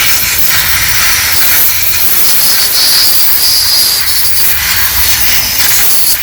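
Loud, steady spray hiss with no break, from cleaner sprayed around the engine's VVT solenoids to clear debris before they are removed.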